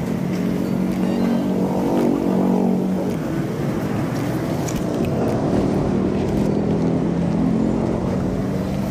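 Motorcycle engine running, climbing in pitch over the first couple of seconds, then dropping back and holding fairly steady.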